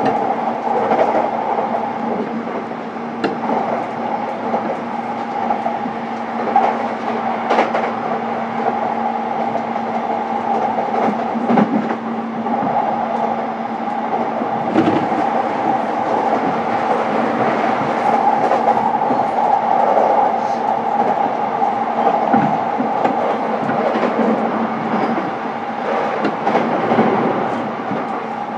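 JR East E233-series electric commuter train heard from inside the passenger car while running steadily: a continuous rolling rumble with a constant hum, broken by scattered clicks and knocks from the wheels over the track.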